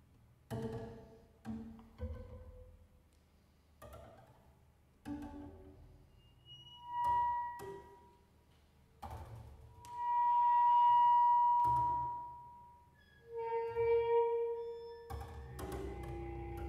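Double bass played solo in a contemporary piece: a run of short, sharply attacked notes that ring out briefly, then high bowed tones, one long note that swells and fades about ten seconds in, followed by a lower held note.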